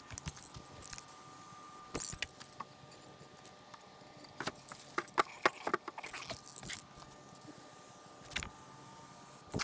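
Aerosol spray paint can being shaken, its mixing ball rattling in irregular runs of clicks, thickest about halfway through.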